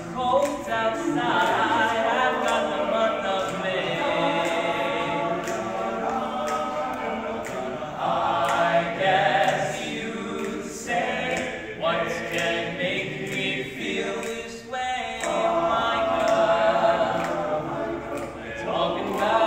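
All-male a cappella group singing several voice parts together with no instruments, over a steady beat.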